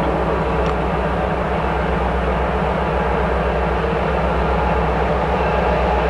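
EMD GP7 diesel locomotive's 16-cylinder two-stroke engine running as the locomotive approaches, a steady low drone.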